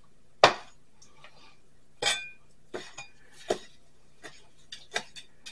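Kitchen knife cutting cooked steak on a plastic cutting board: a string of uneven knocks as the blade meets the board, the loudest about half a second in, one with a brief ring.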